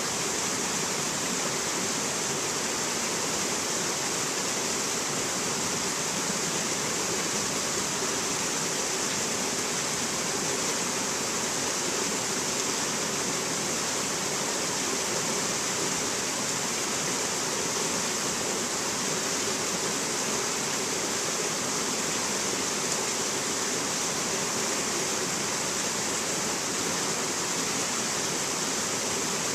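Shallow mountain stream rushing over rocks and boulders in small cascades: a steady, hissy rush of water that does not change.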